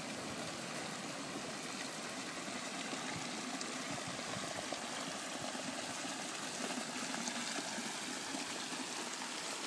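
Hot water from Conch Spring (Fortress Geyser) flowing steadily down its geyserite runoff channel.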